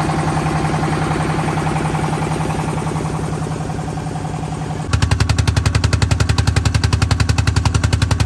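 Single-cylinder stationary diesel engine running steadily, belt-driving an air compressor, with a rapid, even beat of firing thuds. About five seconds in, the sound cuts abruptly to a louder, closer take of the same rapid beat.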